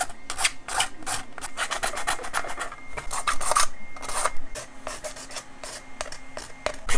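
Hand sanding of a 3D-printed plastic mask: short scratchy strokes in quick, uneven succession, a little lighter for the last couple of seconds. This is the final smoothing of the rough spots left by a 3D-pen repair of a layer shift.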